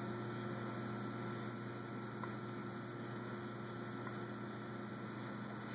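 Steady low electrical hum under a faint even hiss, with no other sounds.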